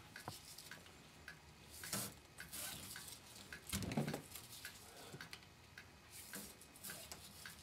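Faint rustling and scraping of twine being drawn through and knotted on a hand-held ebony netting needle and mesh gauge, a few soft scratches and clicks, over a steady ticking about twice a second like a clock.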